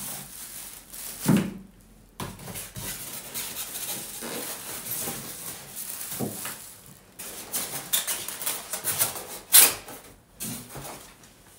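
Plastic bags crinkling and rustling as plastic-wrapped speakers are pulled out and handled, with small knocks throughout. Two louder knocks, about a second in and toward the end, as the pieces are set down on the table.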